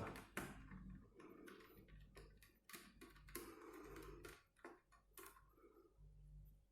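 Faint, irregular light clicks and ticks of a screwdriver working small screws and metal-on-plastic contact on a laptop's underside, dying away about five seconds in.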